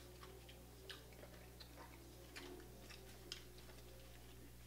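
Faint, scattered clicks and smacks of someone eating seafood boil with her hands: mouth and lip sounds while chewing, a few a second.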